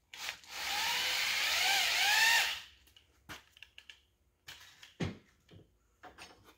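Electric hand drill spinning a cone chamfer tool against the edge of a connecting rod's big-end bore, breaking the edge. It runs for about two seconds, its pitch dipping and rising as the cutter bites, then stops. A few short knocks follow.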